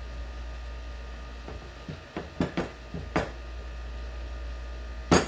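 Steel hammer tapping on a small deep-well socket to drive a metal flange sleeve out of a rubber shifter bushing: several light metallic knocks from about a second and a half in, then a hard strike near the end.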